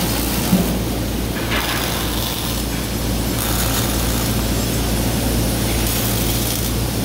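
Robotic arc welding: the arc crackles and hisses steadily as the robot arm's torch welds steel rebar frames, over a steady low electrical hum.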